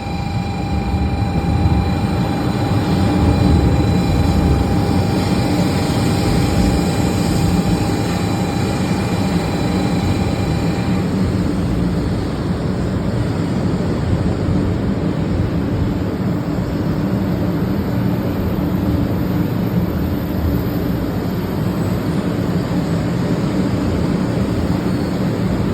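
500 Series Shinkansen running at speed: a steady rumble and rushing noise, with a faint high steady whine that drops out about eleven seconds in.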